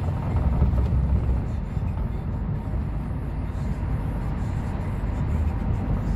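Steady low rumble of a car running, heard from inside the cabin: engine and road noise.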